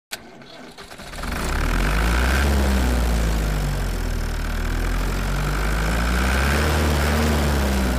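A motor running with a deep, steady hum whose pitch wavers slowly up and down. It starts with a click and grows louder about a second in.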